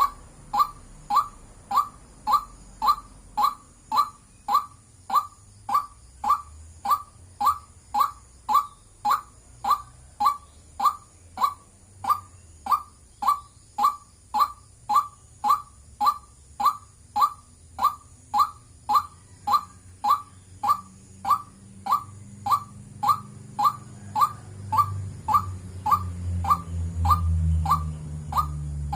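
White-breasted waterhen calling, a short 'wak' note repeated steadily about twice a second. A low rumble builds up underneath in the last few seconds.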